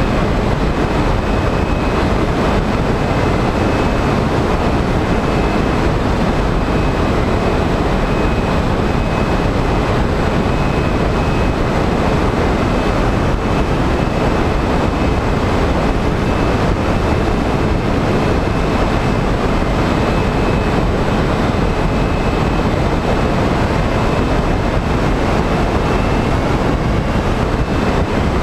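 Skywalker FPV model plane in flight, heard from its onboard camera: loud steady wind rush over the microphone, with the electric pusher motor and propeller giving a faint steady high whine underneath.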